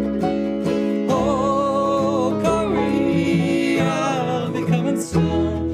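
Acoustic bluegrass band playing: strummed acoustic guitar with mandolin, banjo and upright bass, and a man singing the lead vocal from about a second in.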